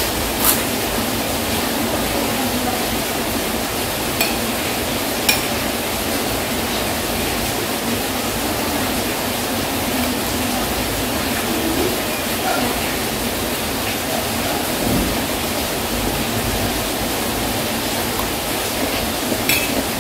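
Heavy rain making a steady, even hiss, with a few short clicks over it.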